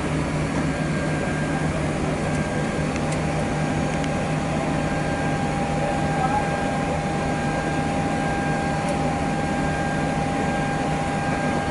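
Steady cockpit hum of a Boeing 737-800 on the ground during engine start: a constant low drone with a thin, even whine above it, unchanging throughout.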